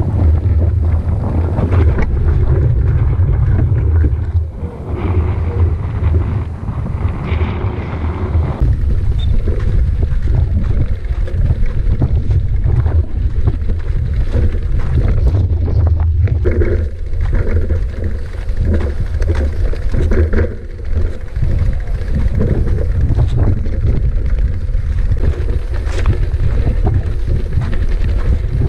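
Wind buffeting the microphone during a mountain-bike ride: a loud, steady low rumble, with frequent short knocks and rattles from the bike on rough ground.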